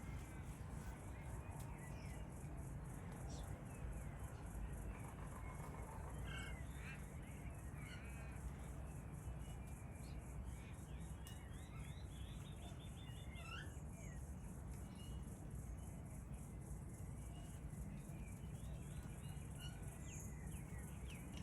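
Faint bird calls: scattered short chirps and quick runs of notes, heard mostly in the middle stretch, over a steady low rumble.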